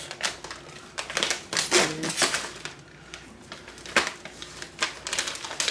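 Plastic candy packaging being handled and opened, crinkling in a run of quick, irregular crackles and clicks.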